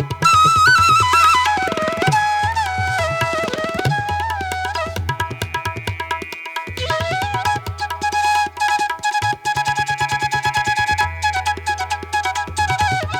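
Background music: Indian classical-style instrumental with a gliding melody over quick tabla strokes and a low drone.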